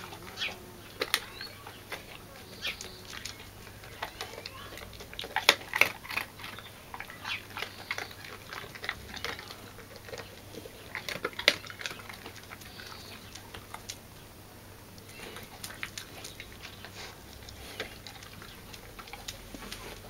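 Dutch Shepherd eating bread off a concrete patio: irregular crunching and clicking as it chews and picks up pieces, loudest a little past five seconds in and again near the middle.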